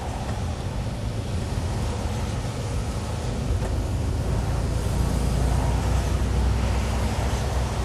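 Inside a lorry cab, the diesel engine runs with a steady low rumble in slow motorway traffic, under the hiss of tyres on a wet road. It grows slightly louder about five seconds in.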